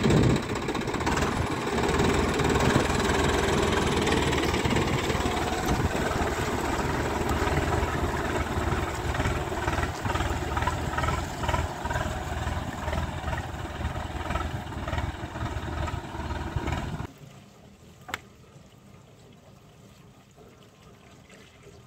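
Swaraj 855 tractor's three-cylinder diesel engine running steadily as the tractor works through wet paddy-field mud with a rotavator. The engine sound cuts off abruptly about 17 seconds in.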